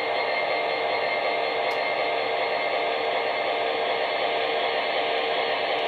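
MTH HO-scale model diesel locomotive's onboard sound system playing a steady diesel engine drone, heard before the locomotive comes into view.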